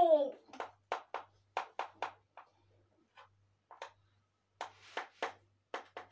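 A small child's crying wail trailing off and falling in pitch at the very start, followed by a run of short, irregular soft sounds, a few each second.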